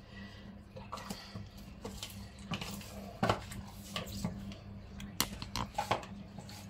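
Scattered light clinks and knocks of a dish and kitchen utensils being handled, over a faint steady low hum.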